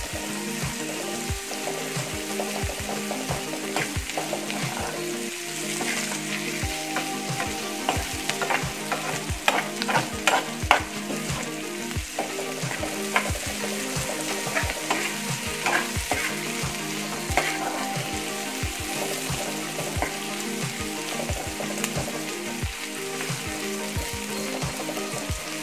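Sliced onions and bay leaves sizzling in hot oil in a frying pan as they brown, stirred with a steel spoon that scrapes and taps against the pan, with a flurry of louder scrapes about ten seconds in.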